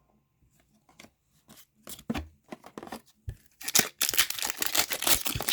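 Cards being handled with light taps and rustles, then about three and a half seconds in a hockey card pack wrapper is torn open with a run of loud crinkling.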